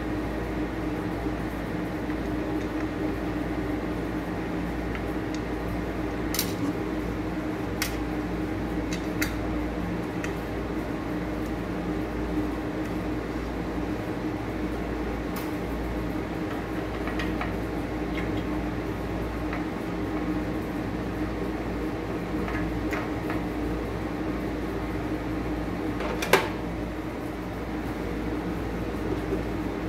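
Steady mechanical hum in the room, with light clicks and clinks from a glass pan lid with a metal rim and its handle being handled. One sharper knock comes near the end, when the lid is set down on the grill plate.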